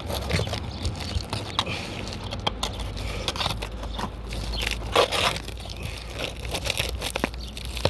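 Asphalt roof shingles crackling and scraping as they are handled and pried up, with irregular clicks and a louder crunch about five seconds in.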